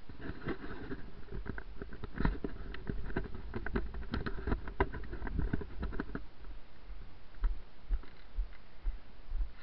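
Walking noise on a rough, frosty path: a run of irregular crackling clicks for about six seconds, with low thuds of footsteps underneath throughout.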